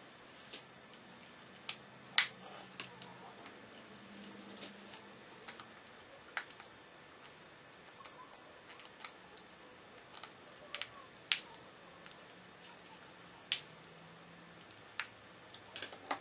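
Plastic Lego bricks being handled and pressed together: irregular sharp clicks, a few much louder snaps about 2 s, 11 s and 13.5 s in.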